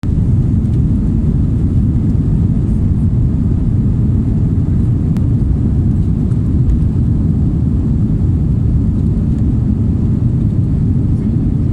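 Jet airliner's engines at climb power just after takeoff, heard inside the passenger cabin as a steady, loud low rumble.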